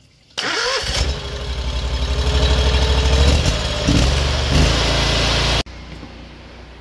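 The petrol engine of a high-pressure drain jetter starts and runs, getting louder over the first few seconds as the throttle is opened toward max, then cuts off abruptly near the end.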